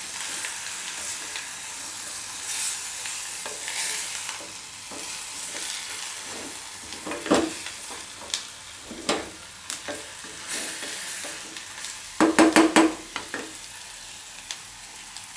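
Chicken frying in masala in an aluminium pressure cooker, a steady sizzle, while a spatula stirs it, scraping and knocking against the pot. A louder cluster of knocks comes about twelve seconds in.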